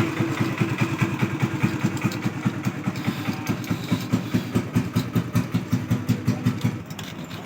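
An engine idling with an even, rapid thump, about seven beats a second, that stops shortly before the end.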